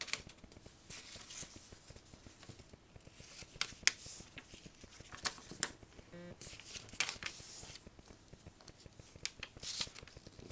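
A sheet of paper being folded and creased by hand, with crisp rustles and short sharp crackles at irregular moments.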